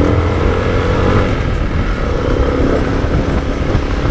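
Yamaha Sniper 155's single-cylinder four-stroke engine running as the scooter-style motorcycle is ridden slowly along a street, mixed with wind and road noise. The engine note eases off about a second in.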